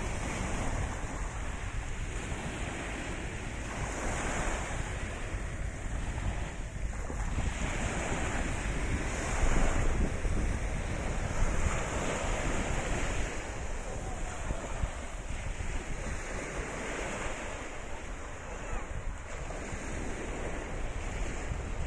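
Small sea waves breaking and washing up a sandy shore, the surf noise swelling and easing every few seconds. Wind buffets the microphone throughout, adding a low rumble.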